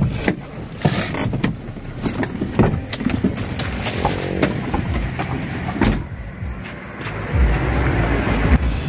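Car interior as the car stands with its engine running low, with repeated knocks and clicks of the occupants shifting out of their seats and a car door being opened.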